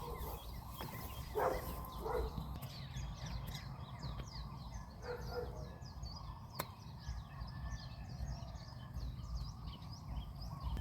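Small birds chirping and twittering outdoors over a steady low rumble. There is one sharp click about six and a half seconds in.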